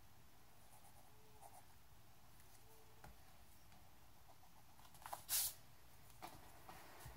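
Faint pencil scratching on sketchbook paper, with one louder, brief scrape on the paper a little past five seconds in and a few light ticks after it.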